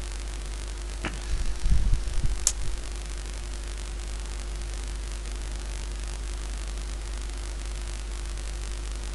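Steady electrical buzz and hum from a damaged microphone that had been dropped on the floor. About a second in comes a click, then a second or so of low rumbling thumps and a sharp tick.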